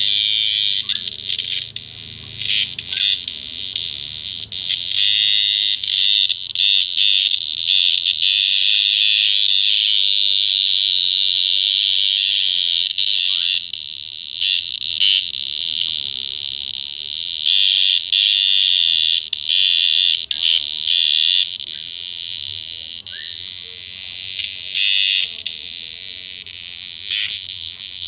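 An animal's loud, shrill, high-pitched buzzing call, held steadily with only brief dips in level.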